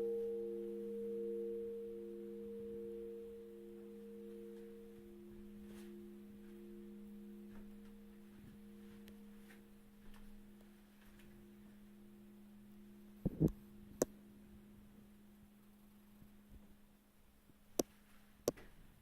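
A struck bell's ring dying away slowly: a low hum tone with higher tones above it, one of them pulsing, fading over many seconds. A few sharp clicks come about two-thirds of the way through and twice near the end.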